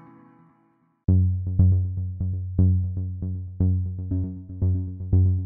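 Electronic intro music. A fading synthesizer chord dies out, there is a brief silence about a second in, then a synthesizer pattern of short plucked notes starts, about two a second, each dying away quickly over a low bass.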